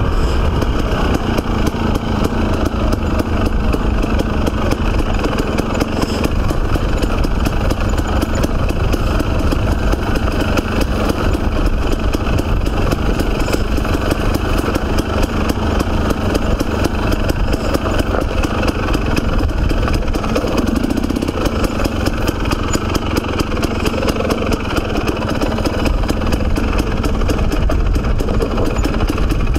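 Dirt bike engine running steadily as the motorcycle is ridden along a rough dirt trail.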